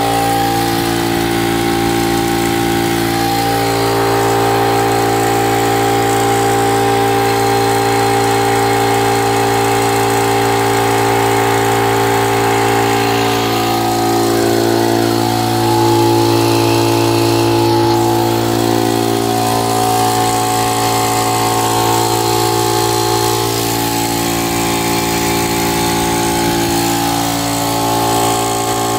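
Motomil 25-litre piston air compressor, driven by a freshly rewound 2 HP two-pole electric motor on 220 V, running steadily as it pumps up its tank, with a constant hum.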